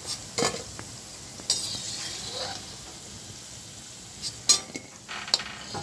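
Pakoras sizzling as they deep-fry in hot oil in a metal wok. A perforated slotted spoon scrapes and clinks against the wok a few times as they are lifted out, loudest about four and a half seconds in.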